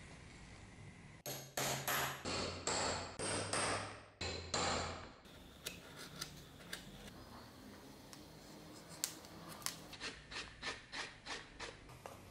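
Hand work on a leather sheath: several long, loud scraping strokes in the first few seconds, then a run of short, sharp scrapes from a small blade trimming the leather edge, quickening to about three a second near the end.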